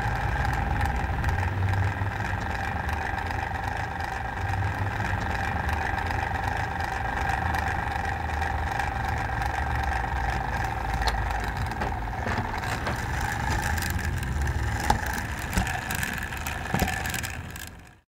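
Roullet-Decamps walking peacock automaton's mechanism running with a steady whirring hum over a low rumble. There are a few light clicks in the second half, and the sound fades out near the end.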